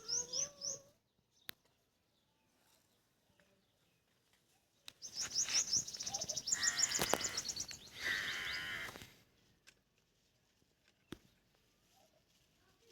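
Small birds chirping in quick runs of high notes: a short burst at the start, then a longer, louder stretch from about five to nine seconds in, over a rushing noise.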